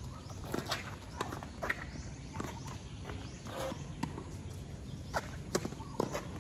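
Doubles tennis rally on a hard court: about ten sharp pops of rackets striking the ball and the ball bouncing off the court, with scuffing footsteps between them.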